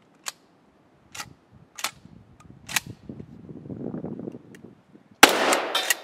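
Pump-action shotgun being cleared of a stovepipe malfunction: a few sharp metallic clacks as the slide is racked back and forward. About five seconds in comes a single loud shotgun shot with a short ringing echo.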